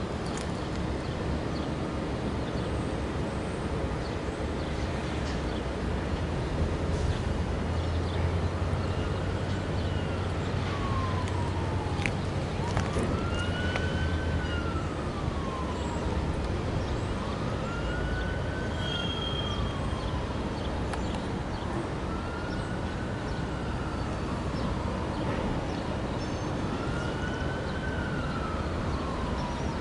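An emergency vehicle siren wailing, rising and falling about every four seconds, starting roughly a third of the way in. Under it is a steady low rumble.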